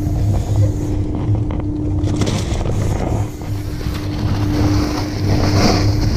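Boat engine idling: a steady low hum with a constant drone under it.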